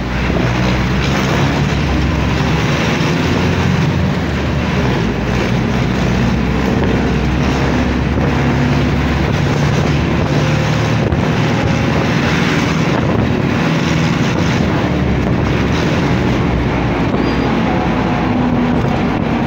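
Steady motor-vehicle engine rumble with wind noise on the microphone, with no clear change.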